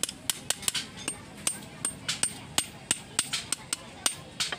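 Ball-peen hammer striking a steel truck brake shoe held on a metal block: a quick, uneven run of sharp metal-on-metal taps, about four a second, each with a brief high ring.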